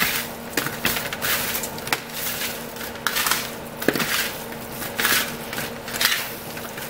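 Bare hands tossing and squishing seasoned raw chicken pieces on a metal sheet pan: an irregular run of wet squelches and small clicks. A faint steady hum runs underneath.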